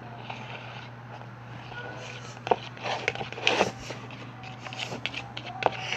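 Slime being stirred in a bowl with a mixing tool: quiet scraping at first, then from about two and a half seconds in a string of short clicks and knocks of the tool against the bowl. A steady low electrical hum runs underneath.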